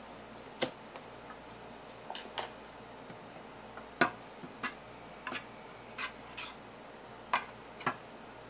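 Scattered sharp clicks and light knocks, about a dozen, the loudest about four seconds in, over a faint steady hiss: a plastic food container being handled and set aside, then a metal spoon tapping and scraping in a stainless steel tray of sauce.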